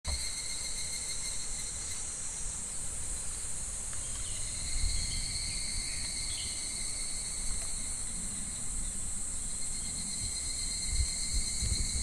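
A chorus of cicadas droning steadily in the summer woods, a continuous high-pitched buzz. Irregular low rumbles run underneath, loudest about five and about eleven seconds in.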